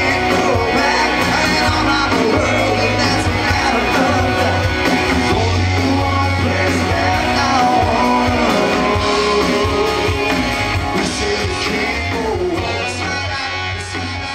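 Live rock band playing a song: electric and acoustic guitars, bass and drums, with a lead singer. The music slowly gets quieter over the last few seconds.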